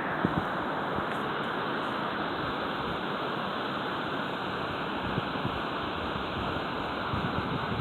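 A steady rushing noise, even throughout.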